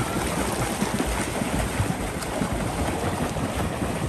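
Swimmers splashing in a pool, with kicking feet and arm strokes churning the water continuously.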